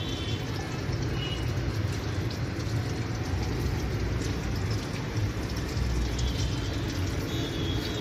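Samsung 6 kg top-load washing machine running with a steady low rumble.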